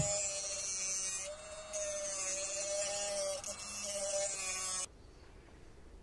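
Dremel rotary tool with a cut-off wheel running, cutting through a sonic-welded plastic shell: a steady high whine that dips briefly about a second in and stops suddenly near the end.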